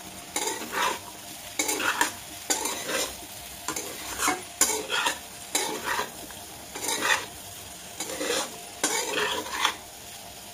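A metal spatula scrapes and tosses diced boiled potatoes with spices in a kadai, in about a dozen strokes roughly once a second over a light frying sizzle. The strokes stop shortly before the end.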